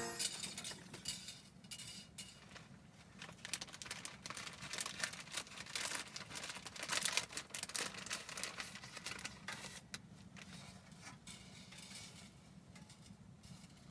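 Faint, irregular crackling and rustling made of many small clicks, busiest in the first half and thinning out toward the end.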